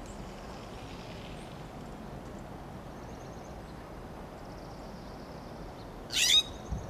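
A California scrub jay gives one loud, harsh call that sweeps downward in pitch near the end, over a steady low background noise and faint high trills of other small birds. A brief low thump follows just after the call.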